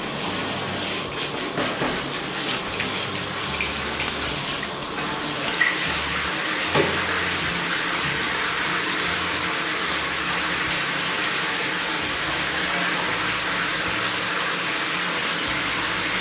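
Handheld shower head running steadily, spraying water over a dog's coat in a bathtub.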